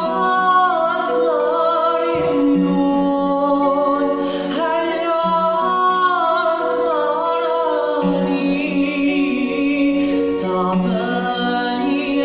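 A man singing solo to his own electronic keyboard accompaniment. The keyboard holds sustained chords that change every few seconds, under a wavering, ornamented vocal line.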